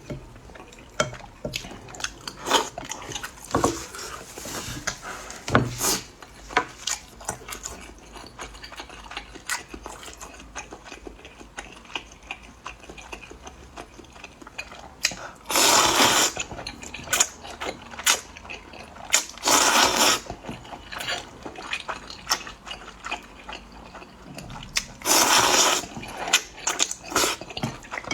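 Eating a bowl of hot rice noodles: chopsticks and spoon click against the bowl throughout, with three long, loud slurps, one about halfway through and two more later on.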